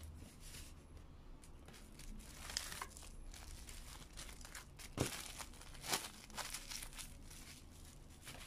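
Plastic cling film crinkling and crackling as it is wrapped by hand around a raw salmon fillet, with sharper crackles about five and six seconds in.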